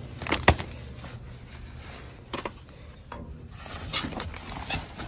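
Handling noise from rummaging through discarded goods: a few sharp knocks, the loudest about half a second in, with rubbing and rustling of plastic-wrapped items and boxes between them.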